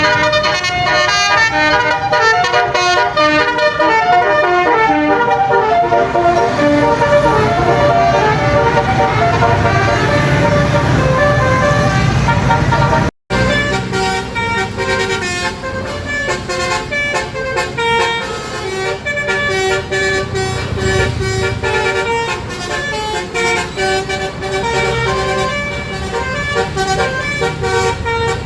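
Telolet basuri musical air horns on tour buses playing quick melodies, note after note, over the low rumble of bus engines. The sound breaks off for a moment about halfway through, and a second horn tune follows.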